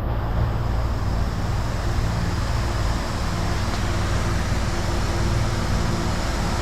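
A steady low mechanical hum with a faint higher tone over it, running evenly throughout.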